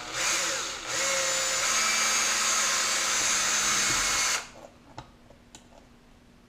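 Power drill with a very small bit drilling a pilot hole for a screw: a short burst, a brief pause, then a steady run of about three and a half seconds that stops abruptly.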